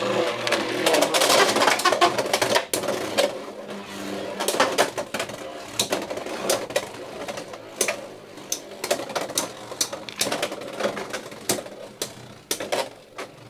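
Beyblade X tops, Driger Slash among them, spinning and colliding in a plastic stadium: a fast rattle with sharp clacks of hits. It grows steadily quieter as the tops lose spin.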